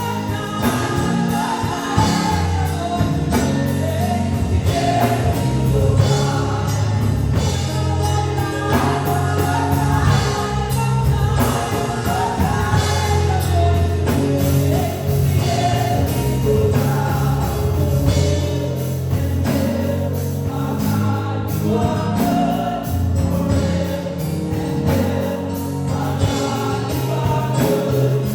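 A worship team and congregation singing gospel praise music with a live band, with a steady bass line and drum beat.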